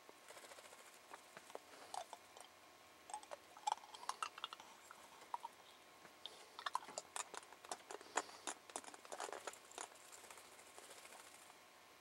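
Hairy woodpecker pecking at suet packed into a hanging wooden log feeder: quick, irregular taps in two flurries, the second longer and denser.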